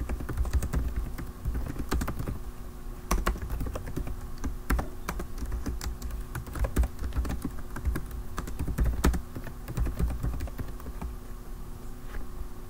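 Typing on a computer keyboard: a run of irregular keystroke clicks, over a faint steady hum.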